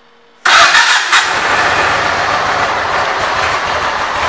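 2004 Yamaha Road Star Silverado's air-cooled V-twin engine starting: a sudden loud catch with a few sharp firing pulses about half a second in, then running steadily.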